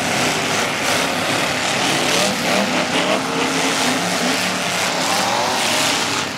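Several figure-8 race cars' engines running and revving together, their pitches rising and falling as they accelerate and slow around the track.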